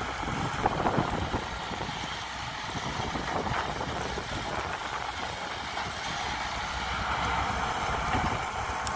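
CAT crawler excavator's diesel engine running steadily as the machine works its hydraulic boom, dumping soil and swinging back to dig. A few dull knocks about a second in as the soil drops into the dump truck's bed.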